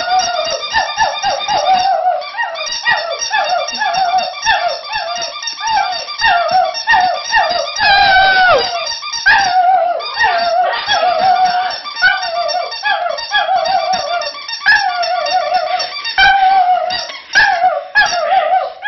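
Squeaky Santa-hat dog toy squeaking over and over as a border terrier holds it in its mouth, about two squeaks a second without pause, with a longer falling squeal about eight seconds in.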